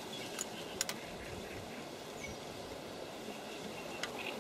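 Faint outdoor background by a reed-fringed river: a steady low hiss with a few soft clicks in the first second.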